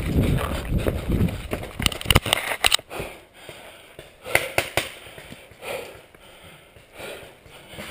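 Footsteps of a player running over leaf litter and twigs on a forest floor. About two seconds in they stop, and a quick run of sharp knocks and snaps follows. After that it is quieter, with a few scattered clicks and rustles of gear.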